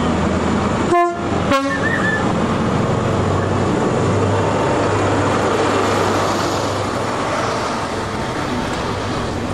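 Diesel locomotive horn giving two short blasts, the second a little lower than the first, over the steady running of a diesel engine and train.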